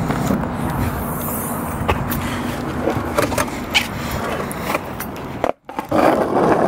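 A few clicks and knocks as a car's trunk is opened and a skateboard is lifted out. After a short break near the end, skateboard wheels roll on asphalt with a steady rumble.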